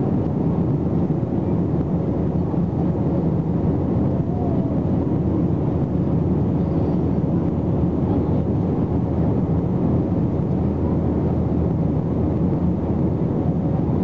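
Steady, loud roar of an Airbus A321's jet engines and rushing air, heard from inside the passenger cabin during the climb after takeoff.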